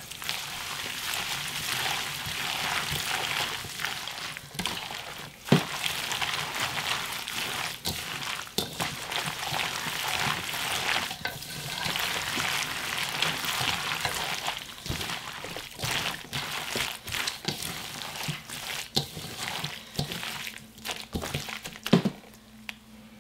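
Gloved hand mixing wet kimchi filling of shredded radish, scallions and chili-flake seasoning in a stainless steel bowl: a steady wet squelching and rustling with scattered clicks, easing off near the end.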